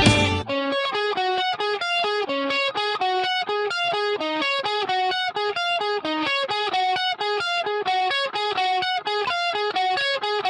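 Solo guitar playing a quick, steady run of single picked notes in a repeating melodic figure. A fuller band sound cuts off about half a second in.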